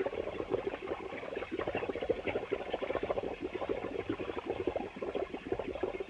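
Cartoon sound effect of rapid bubbling: a dense, even stream of small irregular pops that runs steadily.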